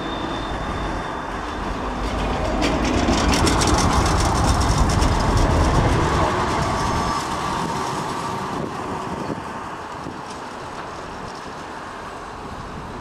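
A Bombardier CR4000 tram pulling away from a stop past the platform. Its running noise grows louder to a peak a few seconds in and then fades as it draws away, with a quick run of wheel clicks about three seconds in.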